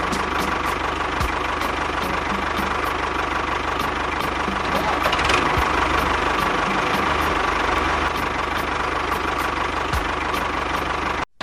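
An engine running steadily with a knocking rattle, cut off abruptly for an instant near the end.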